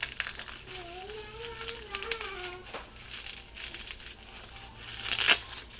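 Packaging being handled during an unboxing: paper and plastic rustling and crinkling with small clicks, loudest in a sharp rustle about five seconds in. A faint high voice sounds in the background for a moment about a second in.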